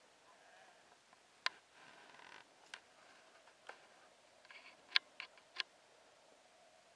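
A few faint, sharp clicks and ticks over a quiet outdoor background hiss, the loudest about five seconds in.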